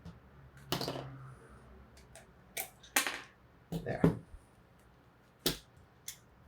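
A handful of sharp clicks and knocks, spaced irregularly, from pliers and small metal parts being handled and set down.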